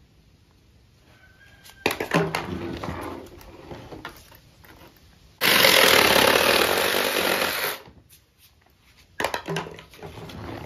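Reciprocating saw cutting through a longhorn's bony horn core near the base of the skull, in one steady burst of sawing lasting about two and a half seconds, starting about five seconds in. Shorter knocks and scraping come before and after it.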